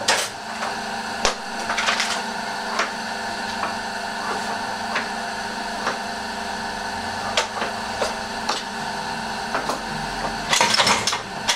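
Belt-driven flywheel die-cutting press running with a steady mechanical hum, while the ram comes down with sharp knocks to cut glove leather. The knocks come singly every second or two, then in a quick cluster near the end.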